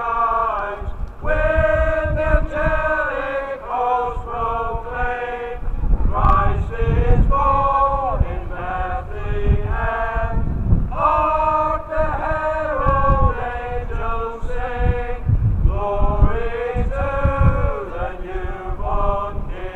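A man's voice heralding: loud, drawn-out, sing-song phrases of a herald's cry, with wind rumbling on the microphone underneath.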